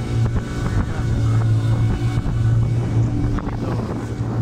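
Motorboat engine running steadily at speed, with water rushing and splashing along the hull and wind buffeting the microphone.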